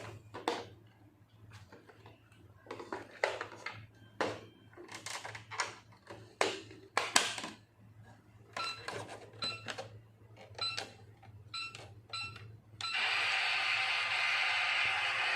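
Plastic toy food and a toy microwave clattering and clicking, then a string of short electronic beeps as the toy microwave's buttons are pressed. Near the end the toy starts its steady running sound for 'cooking'.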